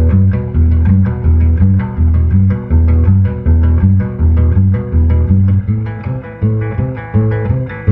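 Acoustic guitar played through its pickup into a bass amplifier turned up full. It picks a steady repeating pattern of low bass notes with higher notes ringing over them.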